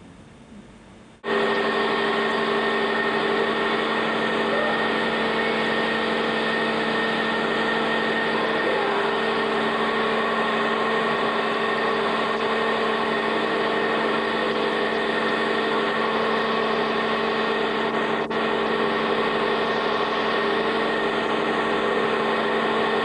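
Loud, steady mechanical hum with several held tones, starting abruptly about a second in, typical of a running machine such as a fan or motor.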